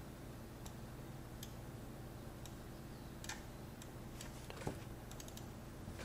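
Faint, irregular clicks of a computer mouse and keyboard as a compositing node is set up, over a low steady hum.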